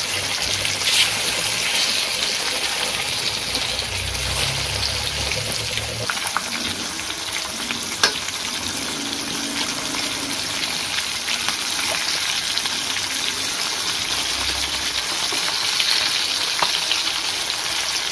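Fish steaks frying in hot oil in a metal kadai on medium flame, a steady sizzle. Two sharp metallic clicks, one about a second in and one about eight seconds in, come from the tongs against the pan.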